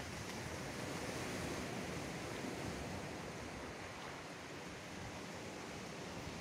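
Steady, even rushing noise with no distinct events, of the kind made by wind, distant surf or running water.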